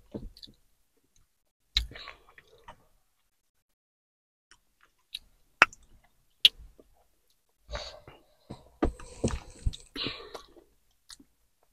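Mouth-close chewing of crunchy Takis rolled tortilla chips: scattered sharp crunches and clicks with quiet gaps, then denser crunching mixed with breathy sounds a few seconds before the end.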